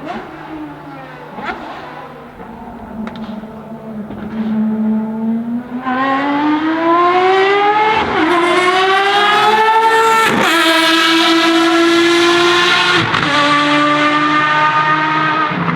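Ferrari FXX Evoluzione's V12 racing engine accelerating hard, getting much louder about six seconds in. Its note climbs and drops sharply at quick upshifts around 8, 10 and 13 seconds in, then holds high before cutting off at the end.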